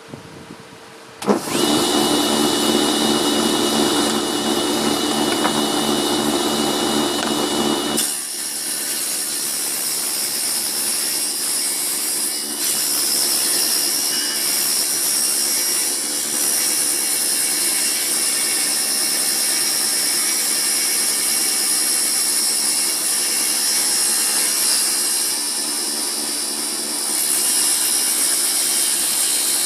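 Home-built table saw switched on about a second in, its motor running with a steady whine. About eight seconds in the sound changes abruptly to a steadier, hissier run, as the blade rips old wood.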